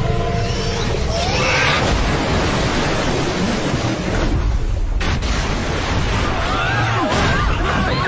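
Film sound effects of a giant creature surging through water: loud, continuous rumbling and churning water, with several people screaming near the end.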